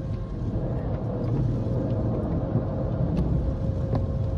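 Automatic car wash's soft cloth strips dragging and slapping across the windshield, heard from inside the car as a steady low rumble with a few light clicks.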